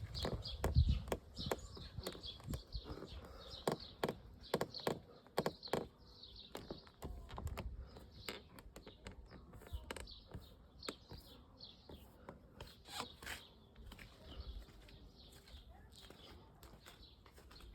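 Volkswagen Passat B8 interior trim creaking and squeaking in the cabin on the move: irregular sharp clicks and short high-pitched squeaks, with a few low thumps from the road.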